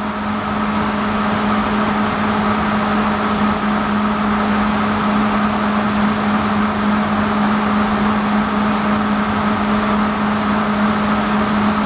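Machinery running with a steady, unchanging drone: a strong constant hum over a wide noise, with a fainter higher tone on top.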